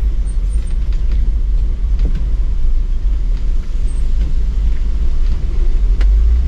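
Light-truck camper rolling down a steep grade in low second gear: a steady low rumble of engine and rough road, with a few short knocks.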